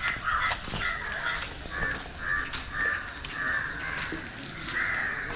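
Crows cawing, many short harsh caws following one another in quick succession.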